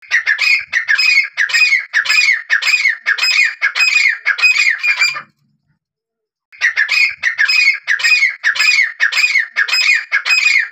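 Grey francolin calling: a loud series of evenly repeated notes, about two a second, in two bouts of about five seconds each with a pause of about a second between them.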